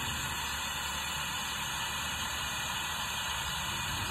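Compressed-air vacuum brake bleeder hissing steadily as it draws brake fluid and air bubbles out through the caliper's bleed screw, with a low rumble beneath it.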